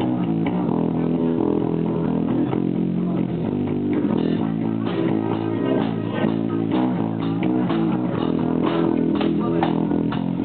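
Rock band playing live: bass guitar and guitar, with a beat of sharp hits that becomes more marked about four seconds in.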